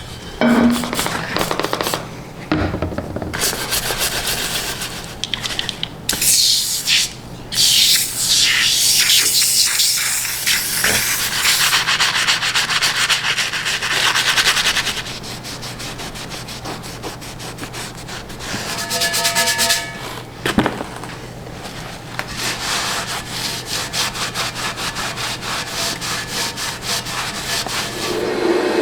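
Abrasive rubbing and scraping on metal, in several long rasping stretches broken by short pauses, over a steady low hum.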